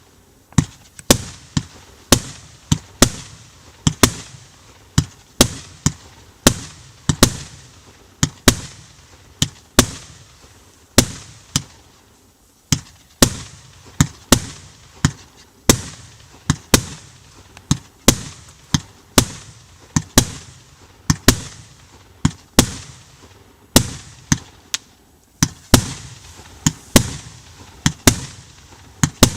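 130-shot, 30 mm (1.2-inch) fireworks cake firing in rapid sequence: sharp bangs about two a second, each with a short echoing tail, with a couple of brief lulls.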